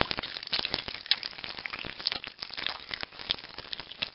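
Dense crackling sound effect full of irregular clicks and ticks, dull and lo-fi with no high end.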